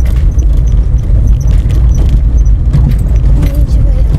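A car driving down an unpaved dirt road, heard from inside the cabin: a steady low rumble of engine and tyres on the dirt, with scattered small rattles and knocks from the bumpy surface.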